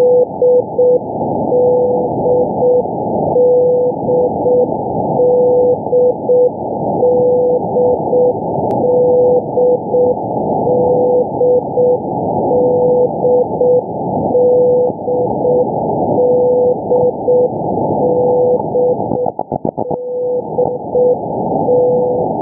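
Single-letter 'D' HF marker beacon heard in CW on a shortwave receiver: a steady beat tone keyed in Morse 'D' (dah-di-dit), repeating about every two seconds over continuous radio hiss. A brief run of rapid clicks comes near the end.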